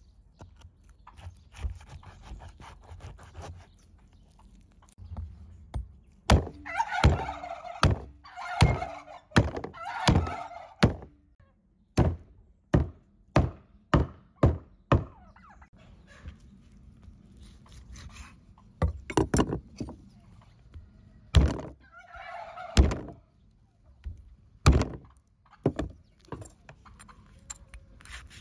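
Domestic turkeys gobbling in several short bursts, mixed with a run of sharp thunks from a large knife chopping meat on a wooden board.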